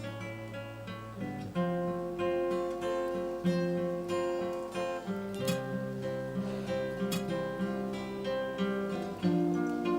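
Acoustic guitar playing slow chords, the notes changing every second or two.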